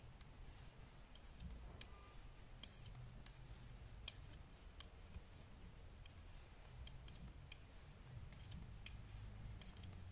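Faint, irregular clicks of metal-tipped Knit Pro 5 mm knitting needles touching as stitches are worked, spaced unevenly a few every couple of seconds over quiet room tone.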